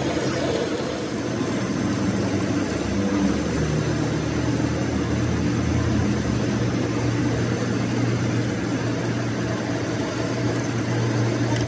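Metal lathe running while a large twist drill bores into the end of a spinning steel part, a steady low mechanical hum with the drill cutting.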